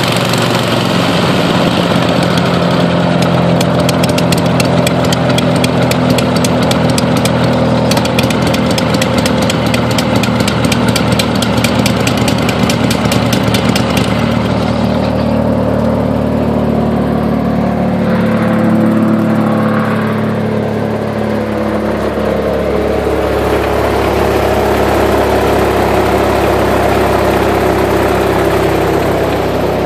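Kohler Command Pro 25 air-cooled V-twin engine on a Vermeer BC625A wood chipper running steadily at speed, then throttled back between about fifteen and twenty seconds in and settling at a lower, softer speed.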